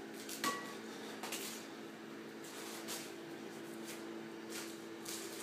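Quiet room tone: a steady low hum with a few faint clicks and rustles, and a small knock with a brief ring about half a second in.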